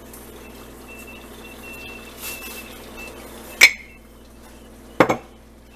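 A sharp metallic clink about three and a half seconds in, then a duller knock a second and a half later: kitchen utensils knocking against the metal pot the eggs are frying in. A faint steady hum sits underneath.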